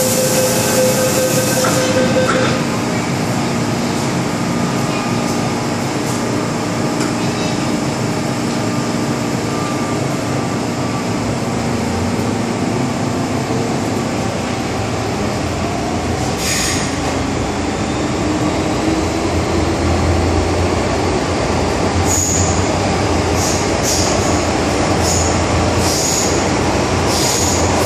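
MTR M-Train electric multiple unit heard from inside the carriage. A steady tone and hiss sound as the doors close during the first two seconds. The train then pulls away, its motors and wheels running, with a rising whine about two-thirds of the way in and several short high wheel squeals near the end.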